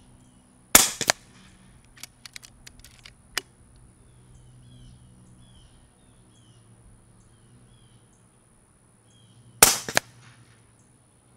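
Two shots from a Katran Compact .22 regulated PCP air rifle, about nine seconds apart. Each is a sharp crack followed a fraction of a second later by a fainter second crack. A few light clicks come between the shots.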